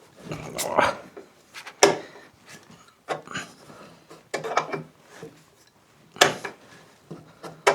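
Car jack being worked to raise the car: a series of irregular scraping, clicking strokes, about one every second or so.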